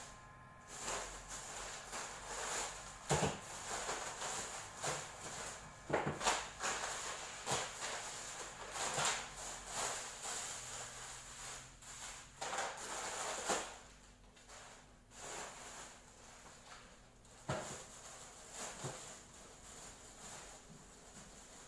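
Plastic shopping bags rustling and crinkling as they are handled and emptied, with occasional knocks of grocery items set down on a table.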